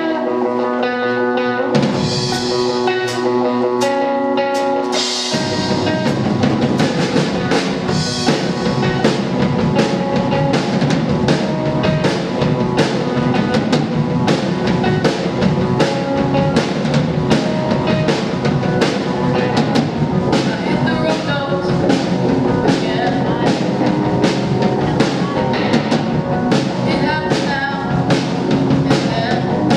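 Rock band playing live, no vocals: a guitar picks a melody over light cymbal strokes, then about five seconds in the bass and full drum kit come in and the band plays on with a steady beat.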